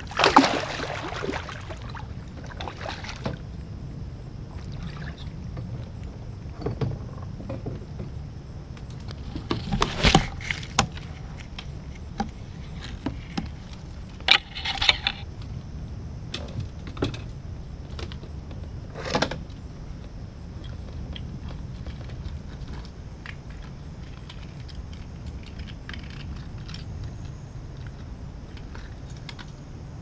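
Scattered knocks, clicks and rattles of fishing gear being handled aboard a fishing kayak, over a steady low rumble. The loudest knocks come right at the start and about ten seconds in.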